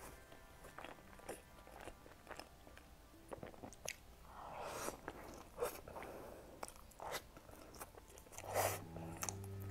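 Close-miked eating sounds of a person biting into and chewing a pastry: many sharp mouth clicks, with two longer noisy bites, about halfway and near the end.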